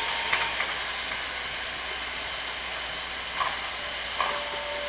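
Steam locomotive standing with a steady hiss of steam, broken by a few short sharp knocks: two close together near the start and two more in the second half.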